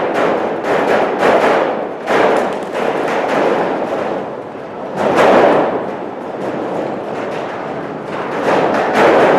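Strong gusty wind buffeting the microphone, a rushing noise that swells and eases, with the biggest gusts about five seconds in and near the end.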